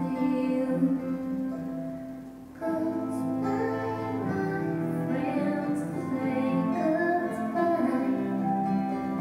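Live folk music: a woman singing to harp, with guitar and cello accompaniment. The music thins briefly about two seconds in, then comes back fuller.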